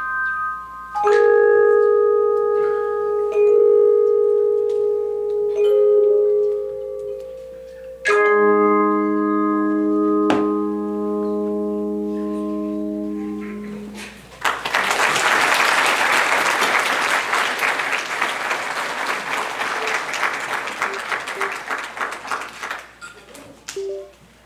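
Handbell choir ringing the closing chords of a piece, the last full chord sounding from about eight seconds in until it is cut off near fourteen seconds. Audience applause follows for about eight seconds and dies away.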